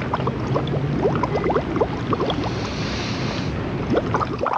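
Water bubbling and gurgling, a quick run of short rising blips over a low rumble, with a brief hiss about three seconds in.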